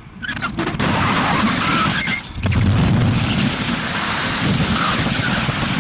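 Wind rushing over the microphone in flight: a loud, even rush that starts abruptly just after the beginning and cuts off abruptly near the end.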